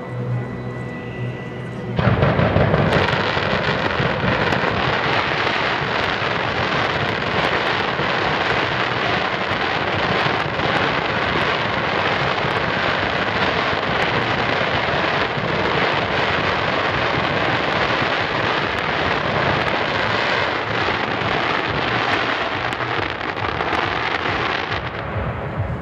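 Fireworks going off in a continuous barrage: a dense crackle of bursts and bangs that starts suddenly about two seconds in and dies away near the end.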